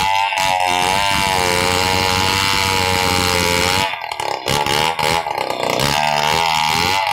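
Two-stroke chainsaw running at full throttle while cutting through a large acacia log, its pitch wavering under load. It eases off briefly about four seconds in, then picks up again.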